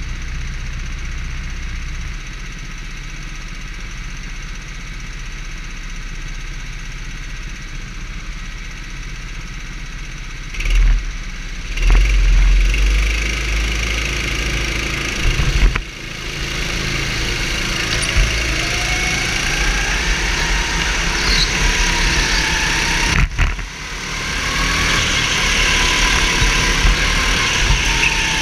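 Go-kart engine heard from on board. It idles steadily on the starting grid, then revs up and accelerates from a little past halfway, its pitch rising, with a brief drop about three-quarters in. There are a few short thumps about a third of the way in.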